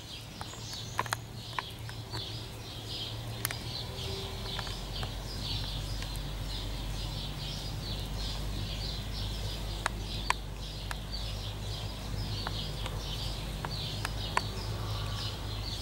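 Steady, high-pitched chirping from an unseen animal, repeated about three times a second, over a low steady hum, with a few sharp clicks.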